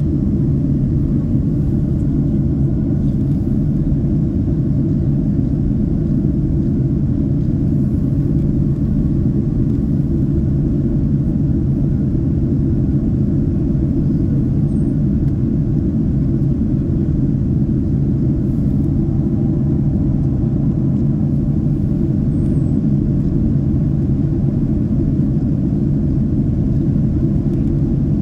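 Steady low rumble of a Boeing 767-300 airliner in flight, heard inside the cabin: engine and airflow noise, unchanging throughout.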